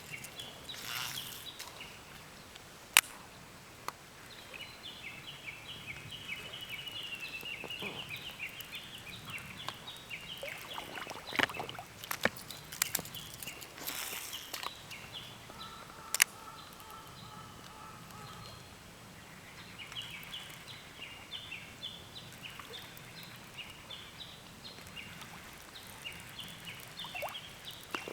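A bird singing in long runs of rapid, short, high notes. The song comes in two stretches, with a few sharp clicks between them.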